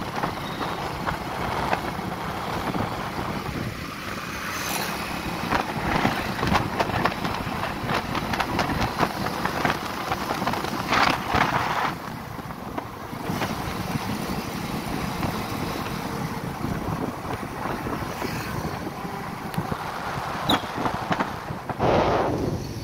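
Wind buffeting the microphone while riding a two-wheeler through road traffic, over a steady low engine hum, with louder swells about eleven seconds in and near the end.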